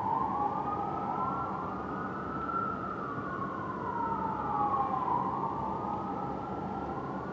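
Fire engine's electronic siren on a slow wail, its pitch rising and falling every few seconds, with a second wail overlapping out of step, over a low steady rumble.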